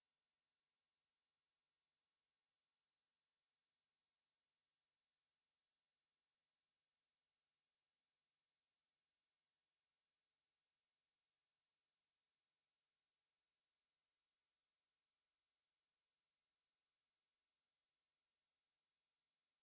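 A steady, unbroken 5328 Hz sine-wave test tone: one pure high-pitched tone held at constant pitch and level.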